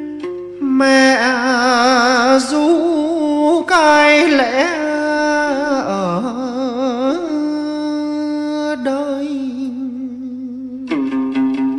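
Vietnamese hát văn music in a wordless instrumental passage. A sustained melody with wide vibrato and sliding pitch bends carries the tune, and the rapid plucking of a lute comes back in near the end.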